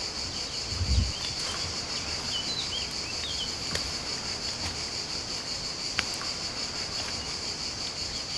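Steady, high-pitched insect chorus, with a few short bird chirps over it and a low thump about a second in.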